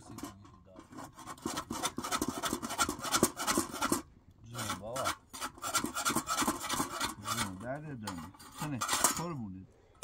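Dry, rasping scraping of thin flatbread being rubbed and turned by hand on a round iron griddle, in quick strokes with a short break about four seconds in. A low hum wavers up and down beneath it in the second half.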